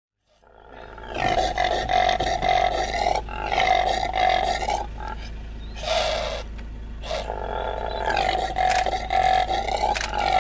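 Impala calling: a series of about four loud, drawn-out vocal calls with short gaps between them, fading in about half a second in, the last call the longest.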